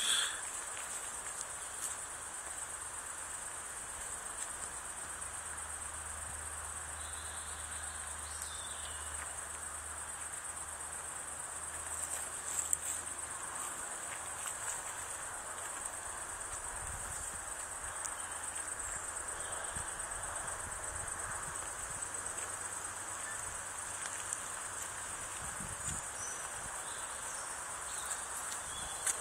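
Insects trilling steadily in a continuous high-pitched chorus.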